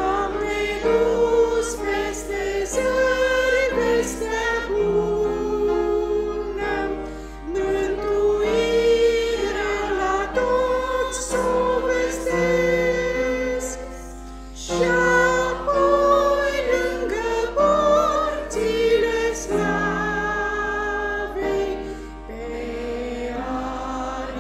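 A group of women singing a Romanian church hymn together, in phrases with short breaks between them.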